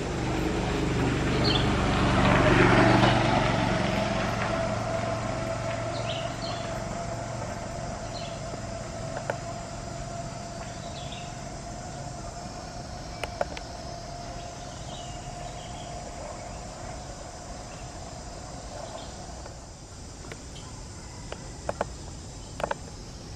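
Outdoor ambience: a passing vehicle's noise swells to a peak a few seconds in and fades away, leaving a steady insect drone with faint bird chirps and a few sharp clicks near the end.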